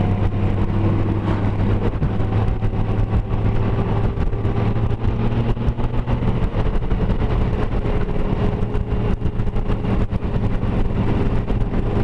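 Honda Gold Wing motorcycle cruising at steady road speed: the engine's even low drone mixed with wind rushing over the handlebar-mounted microphone.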